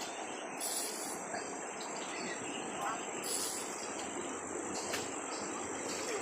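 Insects, crickets or similar, trilling in a chorus, high-pitched and pulsing on and off, over a steady rush of river water.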